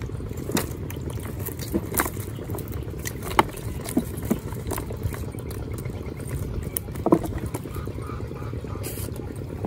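Small fish flapping and splashing as they are shaken out of a fyke net into a plastic basin: a scatter of sharp slaps, about six in all, over a steady low rumble.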